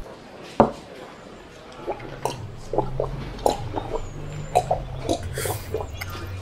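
A single knock, then a person drinking water in a series of quick gulps.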